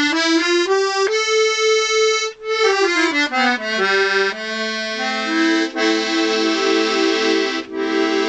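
Vintage Scarlatti 24-bass piano accordion played for the first time with its reeds just refitted and not yet tuned. A run of single notes climbs to a held note, runs back down, and from about four seconds in gives way to held chords that pulse with a tremolo waver.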